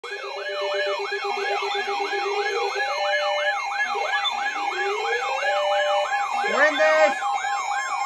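Several weather alert radios sounding their alarms at once for a severe thunderstorm warning: a siren-like warble rising and falling about three times a second over a steady tone, with fast beeping for the first three seconds and slow rising tones. A burst of other alert tones joins near the end.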